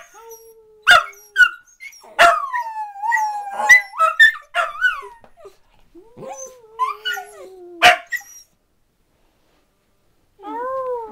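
Dachshunds howling: long wavering howls that slide down in pitch, two voices at once in places, broken by several sharp barks. The sound cuts out completely for about two seconds near the end, then a wavering howl starts again.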